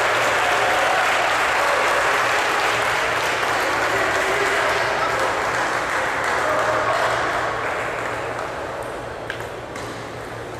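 Crowd in a hall applauding and cheering after a point, fading away over the last few seconds, with a sharp tap near the end.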